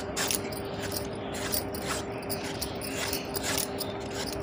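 Hand vegetable peeler scraping the skin off a raw green mango in repeated short strokes, with a faint steady hum underneath.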